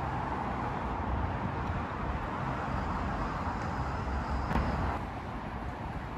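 Steady road traffic noise, a low rumble with a hiss, with a short click about four and a half seconds in.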